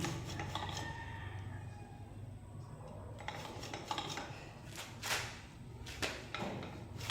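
Zoom 680DH dual-crown suspension fork being compressed by hand, running on a single spring with the other removed: faint metallic rubbing as the stanchions slide, with a few light knocks.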